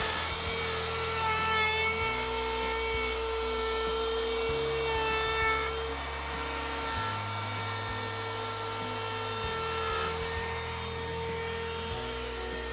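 Ryobi ONE+ cordless trim router with a carbide-tipped hinge mortising bit running at full speed with a steady high whine, routing a hinge mortise into wooden window sash. At the very end it is switched off and the whine starts to fall in pitch.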